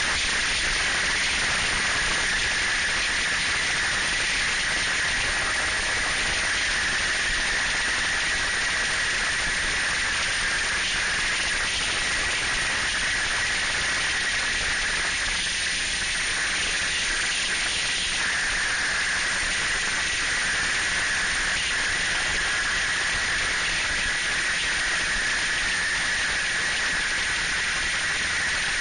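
Snowmobile running at a steady cruising speed, heard from the rider's seat as a constant rushing hiss of wind and engine, with a steady high whine running through it.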